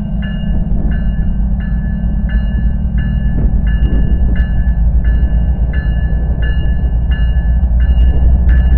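BNSF diesel locomotives rumbling as they load up, the rumble growing louder near the end, with a bell ringing steadily a little under twice a second over it.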